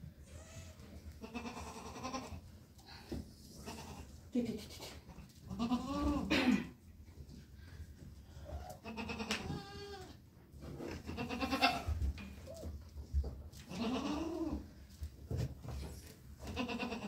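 Goats bleating, about six separate calls a few seconds apart, the loudest about six seconds in.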